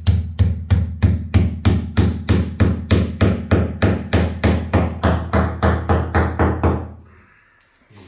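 Hammer driving a screw and plastic wall plug into a hole drilled through wall tile: a fast, even run of blows, about four a second, stopping about seven seconds in.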